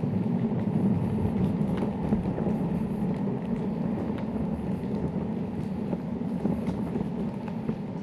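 Electric longboard's wheels rolling over a gravel trail: a steady rough rumble with a few scattered small clicks.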